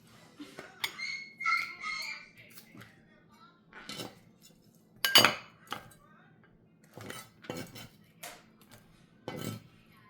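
Kitchen clatter: dishes and utensils knocked and set down on a counter in scattered single clinks, the loudest about five seconds in.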